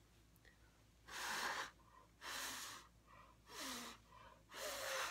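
Four short puffs of breath blown onto wet acrylic paint on a ceramic tile, pushing the paint across the surface.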